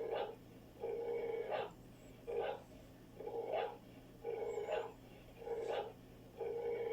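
A sleeping puppy snoring, with regular breaths about one a second. A longer, lower snore alternates with a shorter, higher, airier breath.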